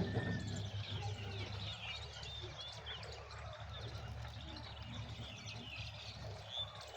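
Many small birds chirping and twittering, with short quick overlapping calls, over a steady low hum.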